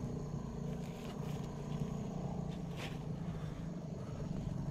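A motor running steadily with a low, even hum, with a few faint ticks over it.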